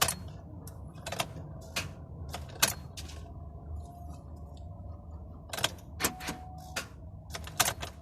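A series of sharp clicks and knocks at uneven intervals, bunched in the first three seconds and again near the end, over a steady low hum.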